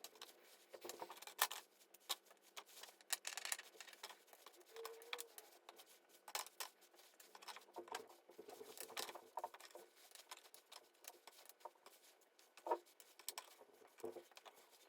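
Faint handling noises: scattered light clicks, taps and rustling, with a sharper click about a second in and another near the end.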